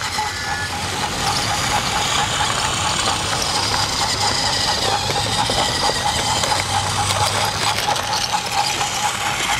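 Battery-powered TrackMaster toy train running on plastic track: a steady motor whine with a regular clicking from the wheels and gears, over a rattling hiss.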